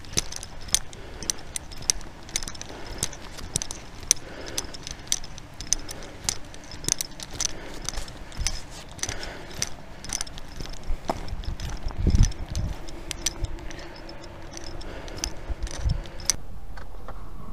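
Footsteps walking briskly and evenly on asphalt, with gear jingling at each stride. There is a low thump about twelve seconds in. Near the end the steps stop and a steady hum takes over.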